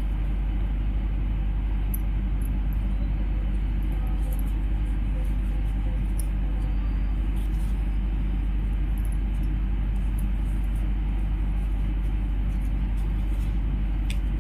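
A steady low hum with a faint even hiss, unchanging throughout, with a few faint high ticks now and then.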